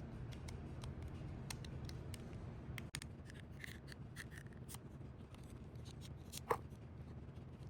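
Small, scattered clicks and light scraping as the rear wheels are worked off a diecast model car, over a low steady hum.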